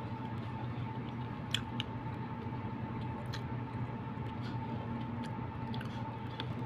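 A person chewing siomai, with a few small clicks, over a steady background hum with a constant high tone.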